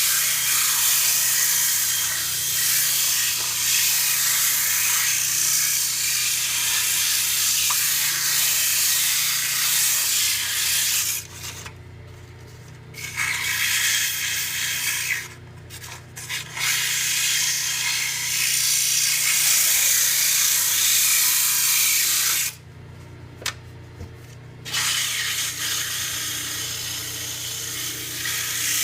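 100-grit sandpaper held against a cedar lure blank spinning on a Jet mini lathe: a steady hiss over the lathe motor's low hum. The sanding stops three times for a second or two, about 11, 15 and 22 seconds in, leaving only the lathe running.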